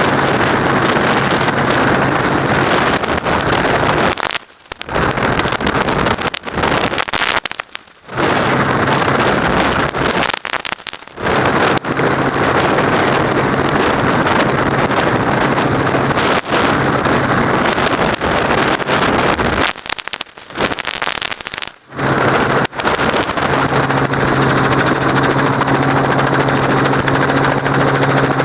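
Helicopter in flight heard from on board: a loud, steady mix of engine, rotor and rushing-air noise with a low, steady hum. The sound drops out briefly several times, and near the end a second, higher hum joins in.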